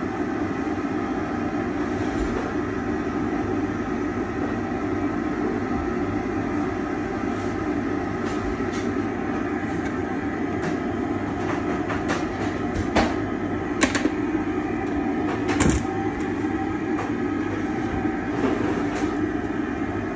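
Dust extractor of a dental lab suction box running steadily, with a cluster of sharp clicks and taps in the second half as the milled zirconia arch and its frame are handled.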